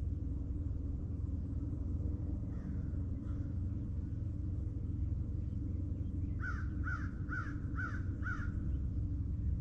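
A bird giving five quick, harsh calls in a row about six seconds in, roughly two a second, over a steady low rumble.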